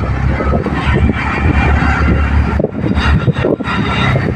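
Auto-rickshaw engine running steadily with road noise, heard from inside the moving rickshaw.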